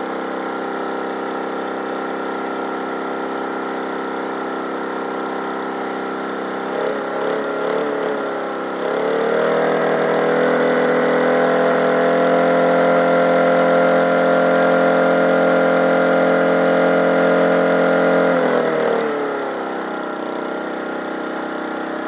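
Small petrol lawn mower engine running steadily, stumbling briefly about seven seconds in, then revving up to a higher, louder steady speed for about nine seconds before dropping back down near the end. The engine is being run hard to destruction, its exhaust glowing red.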